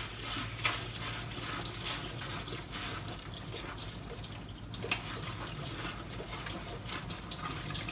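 Tap water running over yellow lentils being rinsed in the sink, with small irregular clicks and splashes as they are washed.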